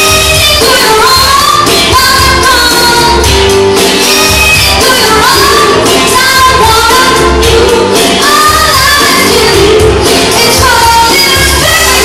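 A woman singing live into a handheld microphone over loud pop backing music, her voice sliding up into held notes over a steady beat, amplified through a club PA.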